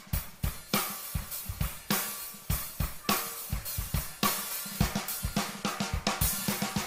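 Live drum kit played in a busy, uneven pattern of bass-drum kicks, snare hits and crashing cymbals, several strokes a second.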